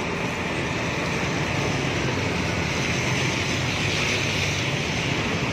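Traffic on a wet road: a bus's diesel engine running steadily, with a car's tyres hissing on the wet surface as it passes, loudest about three to four seconds in.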